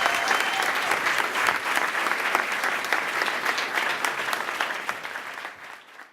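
Audience applauding. The clapping is steady at first and fades out near the end.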